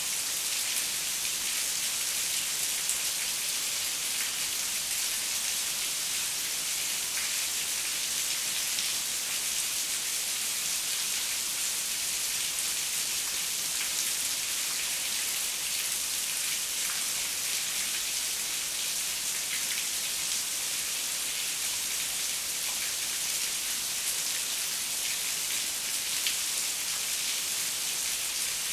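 Heavy rain falling steadily: an even, high hiss of many drops with scattered faint drop ticks.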